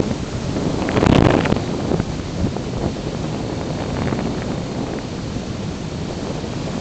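Airflow rushing over the microphone of a camera mounted on an unpowered RC slope glider in flight: steady wind noise that swells briefly about a second in.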